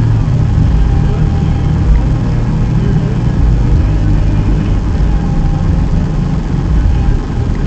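Car being driven, engine and road noise heard from inside the cabin: a steady low rumble.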